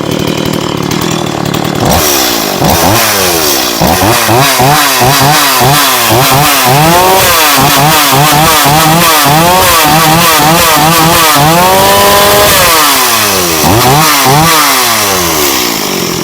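Stihl MS 170 two-stroke chainsaw running: it idles for a couple of seconds, then is revved in quick repeated blips. Near the end it is held briefly at high revs before dropping back to a lower speed. It starts and runs again after the won't-start fault was fixed.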